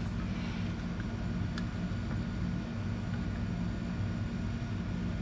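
A steady low hum of background machinery, with one faint click about one and a half seconds in as the engine oil dipstick is pulled and wiped.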